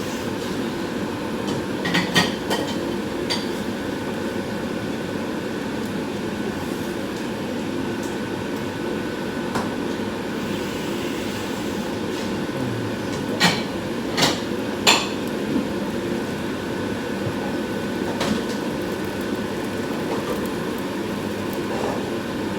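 Kitchenware being handled: scattered sharp knocks and clinks, three in quick succession about two-thirds of the way through, over a steady background noise.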